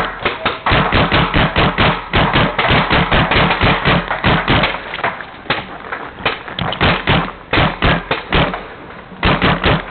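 Tippmann A5 paintball marker firing rapidly, about eight shots a second, in long strings with short pauses about five seconds in and again near the end.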